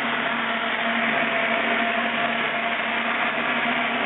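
Machinery running steadily, with a constant hum under an even rushing noise.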